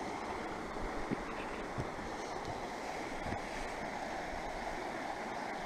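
Shallow river rapids rushing over stones: a steady, even rush of water.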